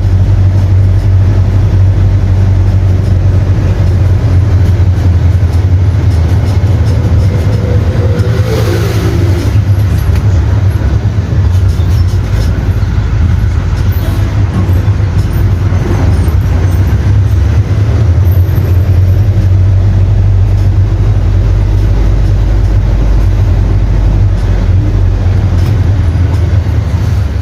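Cummins ISF 160 hp four-cylinder inline diesel engine of a Volksbus 9-160 OD running steadily with a deep, low drone. A brief falling tone comes in about nine seconds in.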